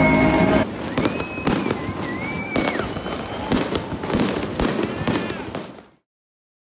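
Fireworks going off: a string of sharp bangs, roughly one or two a second, with a whistling tone partway through. Music plays briefly at the very start, and the sound cuts off suddenly near the end.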